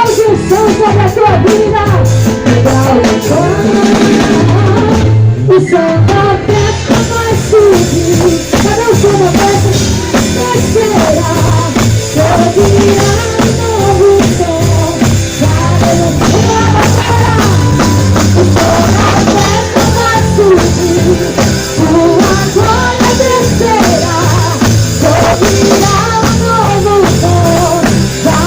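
Live gospel worship band playing loud and without pause: drum kit and bass keep a steady beat under wavering melodic lead lines, in an instrumental stretch between sung verses.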